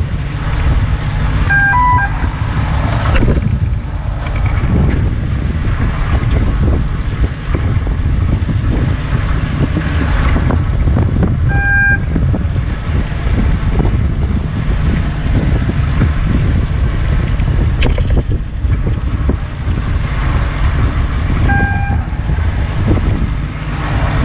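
Wind buffeting the microphone over the low, steady drone of the fishing boat's engine and the sea. A short electronic beep sounds three times, about every ten seconds: the longline setting timer cueing the crew to clip on the next branchline.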